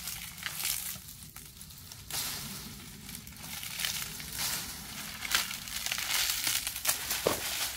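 Dry coconut fronds rustling and crackling as they are pulled from a pile and dragged by hand, in irregular bursts.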